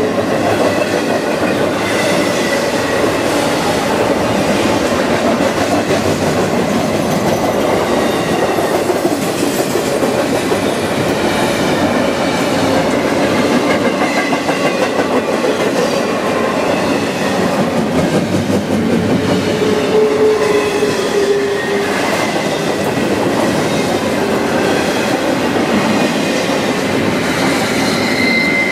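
Double-stack intermodal freight train's well cars rolling past, a loud, steady rumble and rattle of steel wheels on rail, with a faint wheel squeal now and then.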